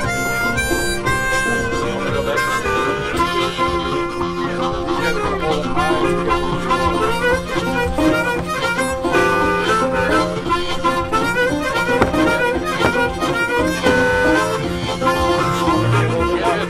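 Background music: a harmonica-led tune over steady low backing.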